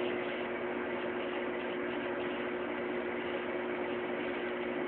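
Microwave oven running: a steady hum with an even hiss over it, unchanging throughout.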